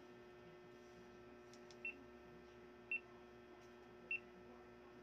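GoPro Hero 9 action camera beeping three times, short high beeps about a second apart, as its buttons are pressed; two faint clicks come just before the first beep. A steady low hum runs underneath.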